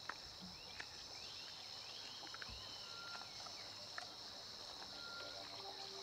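Faint forest ambience: a steady, high-pitched insect chorus, with scattered short bird chirps and a few soft clicks.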